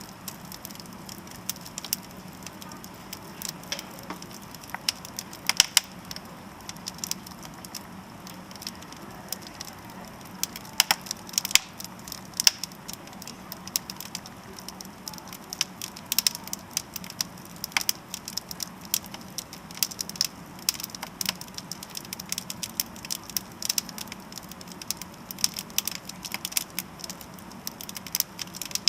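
Wood fire crackling in a fireplace: irregular sharp pops and snaps, a few much louder than the rest, over a faint steady hum.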